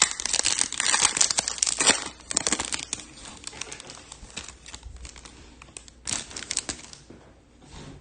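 Foil trading-card pack wrapper being torn open and crinkled: dense crinkling for about the first two seconds, then scattered rustles, with a short burst of crinkling about six seconds in.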